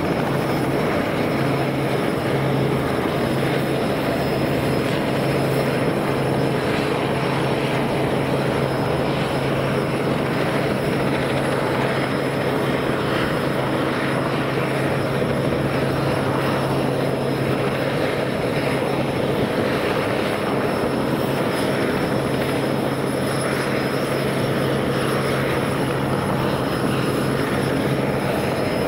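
Robinson R44 helicopter running on the ground, its piston engine and main rotor turning steadily: a constant, unchanging drone with a steady low hum.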